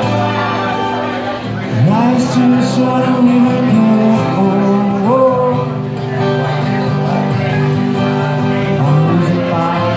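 A band playing: guitars and bass, with a voice singing from about two seconds in. It gets louder from about two seconds in.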